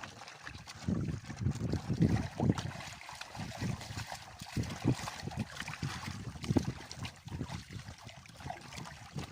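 Water sloshing and lapping against a small boat's hull in irregular splashes, over a steady hiss.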